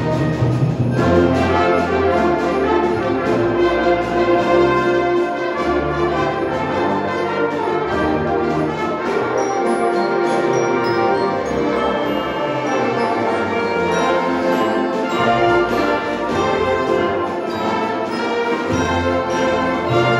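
Live concert band playing: brass (trombones, tubas, trumpets) and woodwinds such as clarinets and saxophones, sustaining full chords over a moving bass line.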